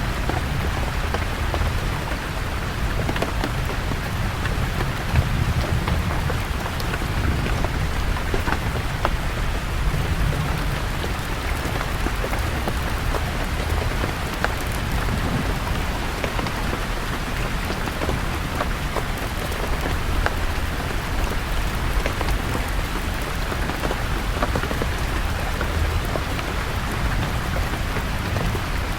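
Steady rain falling on forest leaves, with scattered single drops ticking now and then over a constant low rumble.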